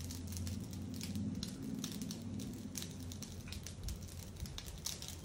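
Faint steady low hum with scattered light clicks and rustles of handling in the kitchen.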